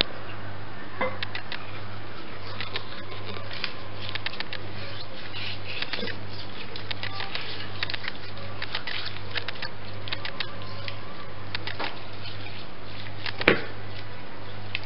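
Hands rubbing coarse salt into raw chicken over a plastic basin: scattered small crackles and clicks over a steady low hum, with a sharper knock about 13 seconds in.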